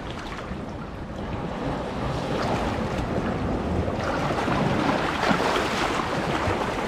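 Shallow sea water sloshing and splashing as a man wades and ducks under the surface to check his cast net. The noise builds and gets brighter about four seconds in as the water is churned.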